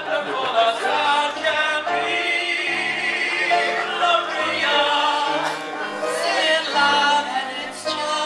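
A live vocal quartet singing together in harmony, holding long notes.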